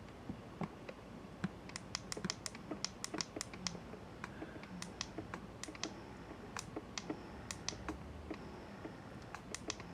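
Youha Gen 2 wearable breast pump running fully assembled with its flange covered, in expression mode at its lowest setting: quiet, with many soft, uneven clicks.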